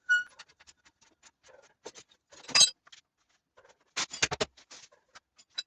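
Scattered metal clicks and clanks of hand tools and suspension parts being handled, starting with a brief metallic ring, with a louder knock a few seconds in and a quick run of knocks near the end.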